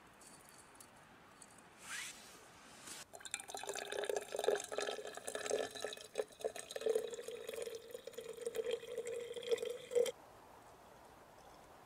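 Coffee poured from an aluminium camping kettle into the steel cup of a vacuum flask. The steady stream carries a hollow note from the filling cup, starts about three seconds in and cuts off suddenly near the end.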